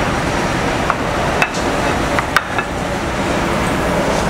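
Steady, loud hiss of a working restaurant kitchen, with a handful of sharp clicks and knocks from utensils and equipment being handled between about one and two and a half seconds in.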